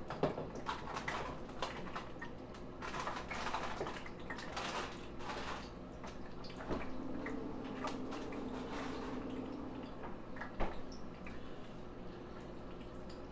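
Frozen burritos deep-frying in hot peanut oil: the oil bubbles and sizzles with many small crackling pops, busiest in the first half, and a couple of sharper pops, one just after the start and one about ten seconds in.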